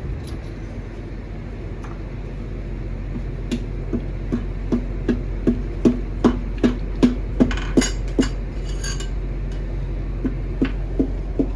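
Repeated metal tapping, about two and a half strikes a second, each with a short ringing tone. It comes in two runs, a longer one through the middle and a shorter one near the end, over a steady low hum.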